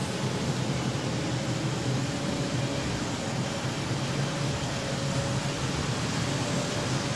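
Model trains running on the layout's track: a steady rumble of wheels and electric motors, with a faint hum that wavers slightly in pitch.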